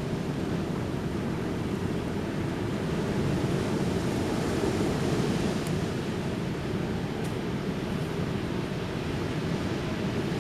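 Ocean waves washing onto a beach, a steady rush with a slight swell in the middle, with some wind on the microphone.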